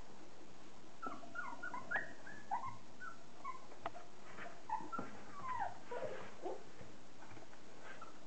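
Several 30-day-old Border collie puppies whining in short, high calls that glide up and down and overlap, with a few sharp clicks among them.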